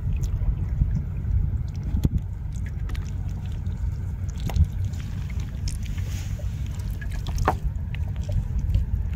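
Hands working a wet nylon gill net to free small fish: soft rustling, dripping and scattered light clicks over a steady low rumble.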